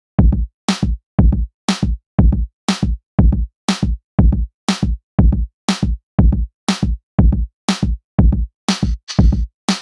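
Electronic background music with a drum-machine beat, deep kick thumps and sharp hits about twice a second, starting suddenly just after the start. A hiss joins in near the end.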